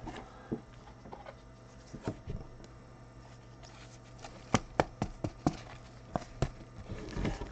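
Gloved hands handling a trading card in a plastic sleeve and rigid top loader: soft rustling and a scatter of light plastic clicks and taps, most of them in the second half.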